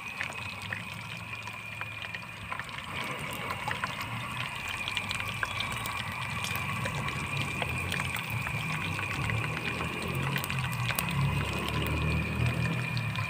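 Chicken wings frying in hot oil in a wok, sizzling with scattered sharp crackles and pops; a low rumble grows louder in the second half.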